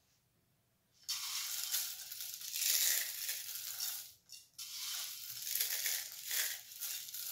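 Cornflakes being crushed between the fingers and crumbled into a saucepan: a dry crackling crunch that starts about a second in and comes in uneven spells, with a short break a little past the middle.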